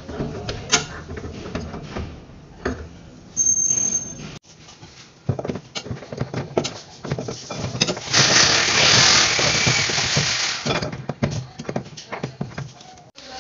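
Hands and tools working on plastic and metal plumbing fittings under a sink: scattered clicks and knocks, with a short high squeak a few seconds in. Later an adjustable wrench is on a pipe fitting, with a loud rough hissing rasp for about two and a half seconds, then more clicks.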